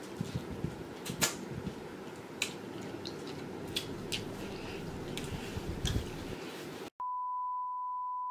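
Close-up eating sounds of a person eating tacos: chewing, lip smacks and finger-licking, a string of small clicks over a low hiss. About seven seconds in these cut off and a steady high test-tone beep begins, the tone that goes with a colour-bars screen.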